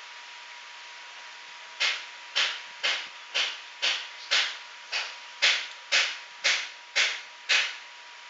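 A run of about a dozen sharp, evenly spaced taps, about two a second, starting about two seconds in and stopping near the end, over a faint steady hiss and a thin steady high tone.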